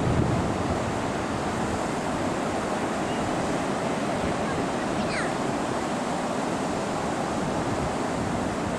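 Ocean surf washing onto a beach in a steady wash of noise, with wind on the microphone.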